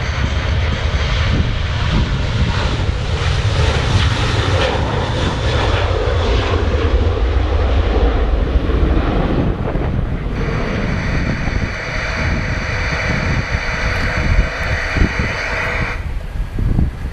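Airliner engines at an airport: a loud, rumbling roar as an aircraft runs up or passes. About ten seconds in it switches abruptly to a steadier engine whine with several pitches, which cuts off suddenly near the end.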